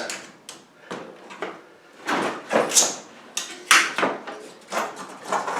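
Bicycle tyre being worked off its rim with spoons: a run of irregular scrapes, clicks and knocks of rubber and metal as the bead comes away.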